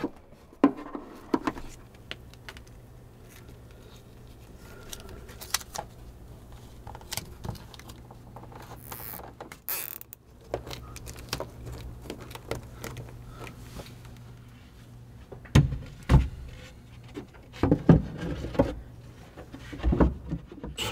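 Hand-work noises: scattered light clicks and rustles of hose and wiring being handled, over a faint steady hum. Over the last five seconds come several heavier knocks as plywood panels are moved and set down.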